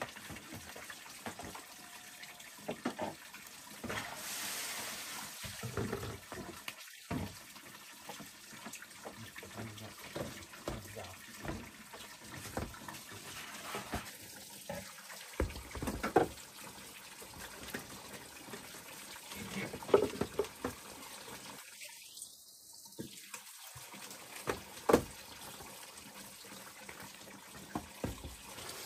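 Water running and splashing into a basin, with scattered knocks and clatter, a few of them sharp and loud.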